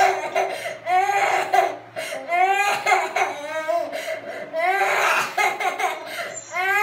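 Three-year-old girl crying in a tantrum, in repeated high-pitched wails and sobs about once a second.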